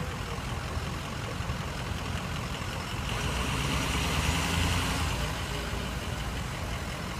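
Paramedic box ambulance's engine running as it pulls past at close range, with a swell in engine and road noise for a couple of seconds in the middle.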